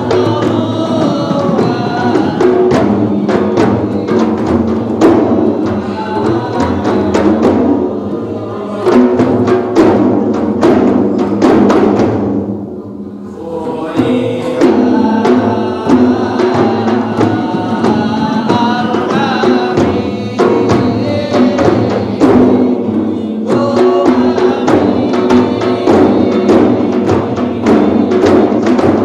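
Several large hand-played frame drums (rebana) beating a fast, steady rhythm while a group of voices chants over them. The drumming and chanting break off briefly about 12 seconds in, then resume.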